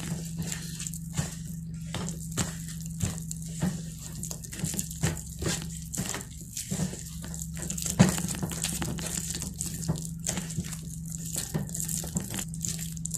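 A metal spoon stirring and mashing a thick, wet flour batter in a plastic bowl: irregular clicks and scrapes of the spoon against the bowl, one or two a second, over a steady low hum.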